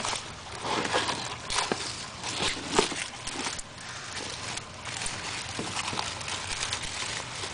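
Dry leaves and twigs crackling and rustling irregularly as a turtle walks through leaf litter.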